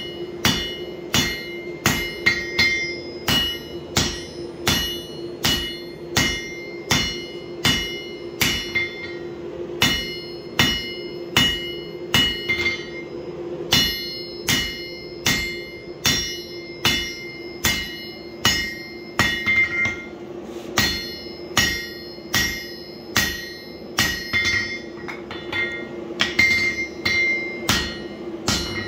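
Hand hammer striking a red-hot steel axe head on an anvil, a steady run of blows a little under two a second, each with a bright metallic ring, as the axe's edge is spread out wide under the hammer. A steady hum runs beneath the blows.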